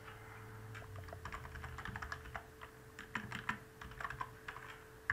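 Typing on a computer keyboard: irregular key clicks that start about a second in, over a faint steady hum.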